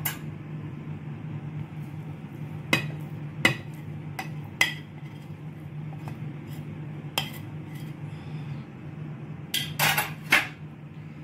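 A plate and spatula clinking and tapping against a glass mixing bowl as flour-coated dried fruit is scraped off the plate into thick cake batter. There are single sharp clinks every second or two, a quick cluster of taps near the end, and a steady low hum underneath.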